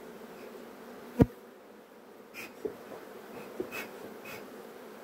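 Honeybees of a Buckfast colony humming steadily over an open hive. A sharp knock about a second in is the loudest sound, with a few lighter knocks after it.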